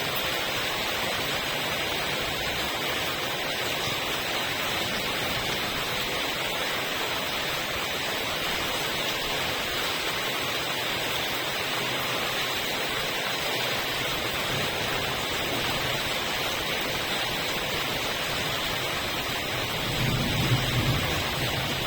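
Steady rain, an even hiss. Near the end a low rumble of thunder starts.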